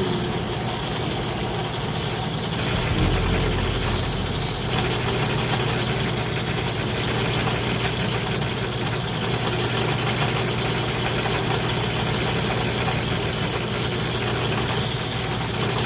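Benchtop drill press running steadily with a buffing wheel in its chuck, an even motor hum, as polishing compound and then the copper bridge plate are held against the spinning wheel.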